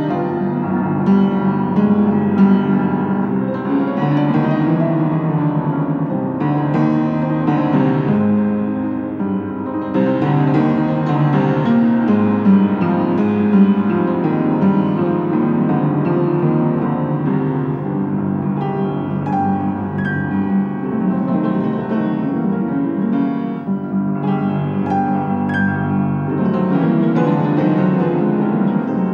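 Background music led by piano, playing steadily without a break.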